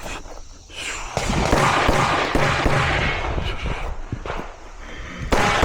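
Rapid strings of pistol shots from a 9mm PSA Dagger (Glock 19 pattern) fitted with a compensator, starting about a second in and coming in quick, uneven bursts as the shooter engages targets.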